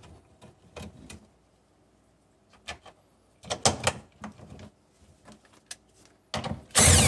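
Metal clicks and knocks of steel bolts being set by hand into a parking brake lever bracket. Near the end, a cordless drill with a socket runs a bolt down, the loudest sound here.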